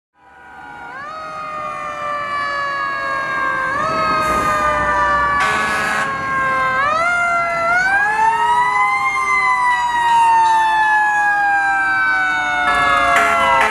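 Several fire-truck sirens sounding at once as the trucks pass, fading in over the first couple of seconds. Their pitches glide slowly down with repeated step-ups, and one siren winds up and coasts back down about eight seconds in. A short noisy burst comes in about five and a half seconds in.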